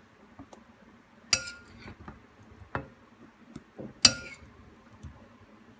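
A spoon clinking against a bowl and plate while scooping marinated strawberries: two sharp clinks with a brief ring, about a second and a half in and again about four seconds in, with lighter taps between.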